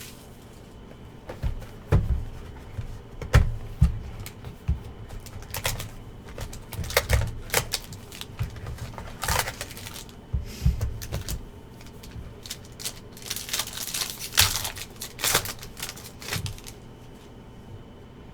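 Hands opening a sealed box of trading cards and getting out the cards: irregular knocks, clicks and scrapes of cardboard and wrapper against the table.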